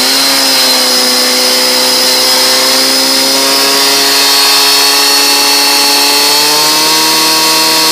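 Portable fire-pump engine held at high revs: a loud, steady engine note with a high whine over it. The pitch rises slightly at the start and then holds.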